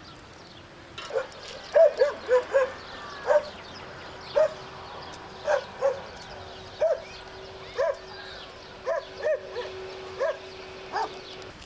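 Dog barking repeatedly: about sixteen short barks at uneven intervals, starting about a second in.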